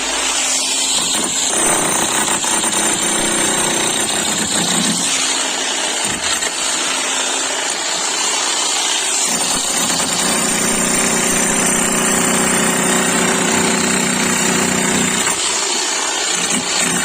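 11 kg electric demolition hammer (breaker) running and hammering continuously.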